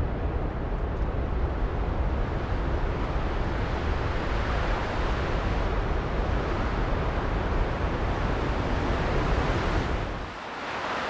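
Steady rushing noise with a heavy low rumble. About ten seconds in, the rumble drops away and a brighter hiss remains.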